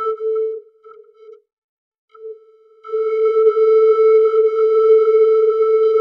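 A buzzy synthesized electronic tone held on one pitch, stuttering and cutting out in the first second and a half, then silent for about a second. It comes back about three seconds in and holds steady and loud.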